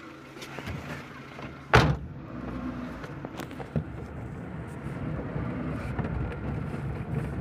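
Maruti Suzuki Eeco van: a door slams shut about two seconds in, then the van drives off along a rough dirt track. Heard from inside the cabin, the engine and road rumble grow gradually louder.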